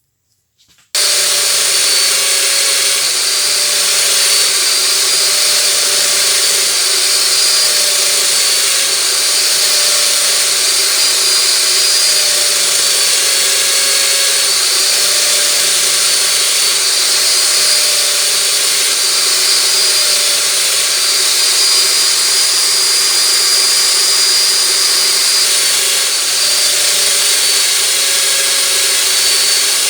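Electric power tool switched on about a second in and running steadily at speed, with a continuous high whine.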